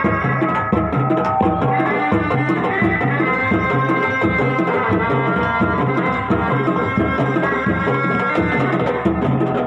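Sundanese tarompet, a wooden double-reed shawm, playing a sustained, wavering melody over a fast, steady rhythm of drums in a reak ensemble.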